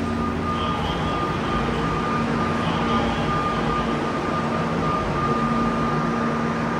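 Steady hum and hiss of a subway train standing at a station platform with its doors open, its auxiliary equipment running, with a thin steady high whine over a low hum.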